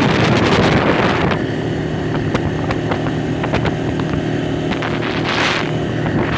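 ATV engine running steadily as it drives along a dirt trail, with wind buffeting the microphone. The wind noise is heaviest in the first second and again in a brief rush near the end, and a few light knocks and rattles come through.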